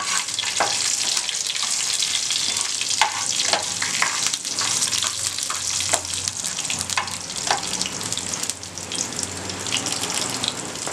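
Tempering of spices, lentils, garlic cloves and dry red chillies sizzling in hot oil in a kadai: a steady hiss with frequent small crackles and pops.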